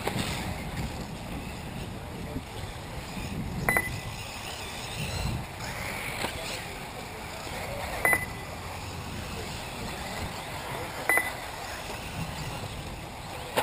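Electric 1/8-scale RC buggies running on a dirt track, heard as faint motor and tyre noise under steady outdoor wind noise. Three short, high electronic beeps stand out, about four and three seconds apart.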